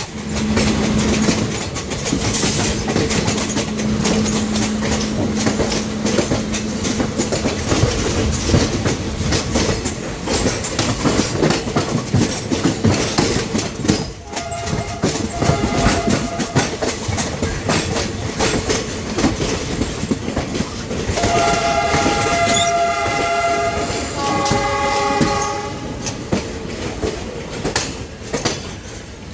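Train running with a steady clickety-clack of wheels over rail joints. About three quarters of the way through comes a two-blast call on a multi-tone horn.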